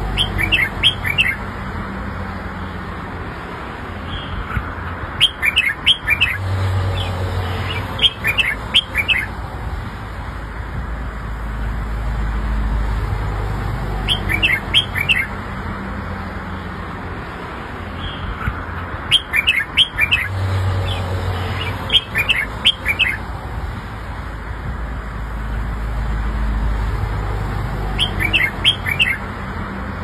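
Red-whiskered bulbul singing: about seven short phrases of quick, clear notes, each about a second long and a few seconds apart. A steady low rumble runs underneath.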